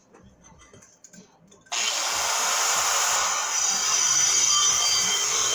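A few light handling clicks, then about two seconds in a power cutting tool starts and runs steadily, cutting into the truck's steering column.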